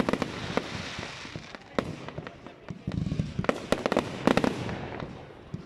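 Fireworks going off in a display: a string of sharp bangs and crackling reports over a rumbling haze, with the densest cluster of bangs about three to four and a half seconds in.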